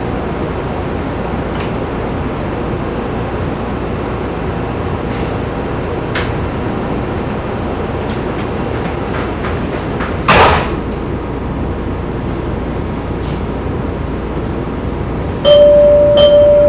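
Inside an MBTA Blue Line Type 4 subway car standing at a station: the car's equipment hums steadily, a short loud burst of noise comes about two-thirds of the way through, and near the end a loud held electronic tone sounds with two short higher beeps.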